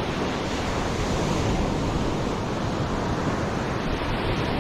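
Sea waves, a steady even wash of surf.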